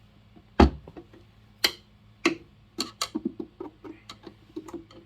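Plastic clicks and knocks from the Frankford Arsenal X-10 case collator being opened by hand: one sharper knock about half a second in, then irregular single clicks and a quicker run of light ticks.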